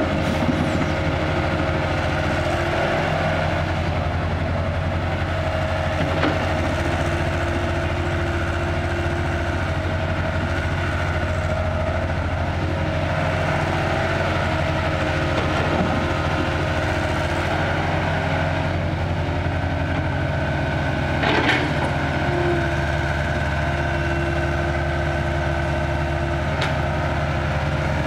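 CAT crawler excavator's diesel engine running under load with a steady whine as it digs and swings soil into a dump truck. The engine note shifts about two thirds of the way through, and a few sharp knocks come through, the loudest just after.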